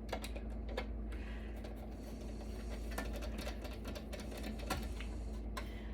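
Scattered light clicks and taps of hands working parts loose inside a server's metal chassis, over a steady low hum.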